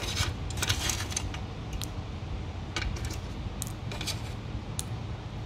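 Small glass and ceramic cartridge fuses being set down one by one into a clear plastic box: several light, separate clicks and clinks.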